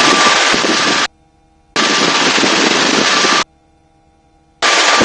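Helicopter rotor and wind noise heard through the crew headset intercom, a loud rushing hiss that cuts in and out abruptly as the microphone gates on and off: on for about a second, off, on again for under two seconds, and back on near the end.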